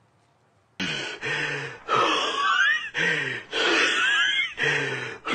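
A hiker's heavy, loud breathing close on the phone's microphone, starting suddenly about a second in: gasping breaths with groans in them, coming about once a second.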